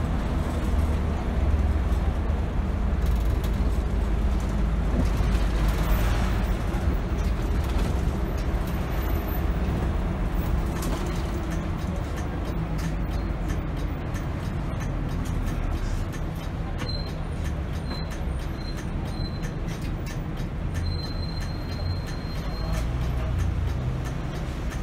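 Inside a city bus under way: a steady low rumble of engine and road noise. There is a brief burst of noise about six seconds in, and a faint high whine comes and goes in the last third.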